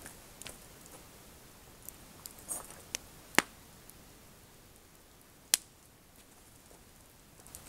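Wood coals of a campfire crackling under a grill: faint scattered ticks and two sharp pops about two seconds apart.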